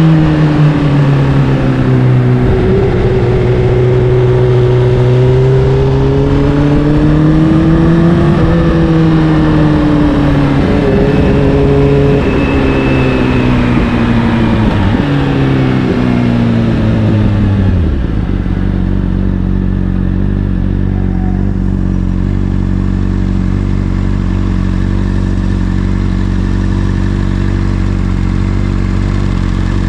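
Honda CBR600RR inline-four engine through an Akrapovic exhaust, riding with the revs rising and falling. About two-thirds of the way in it drops to a steady idle.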